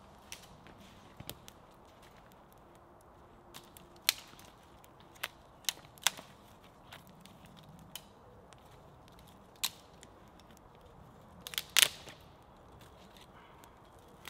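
Scattered sharp cracks and snaps of dry sticks and wood being handled, about a dozen at irregular intervals, with the loudest cluster near the end.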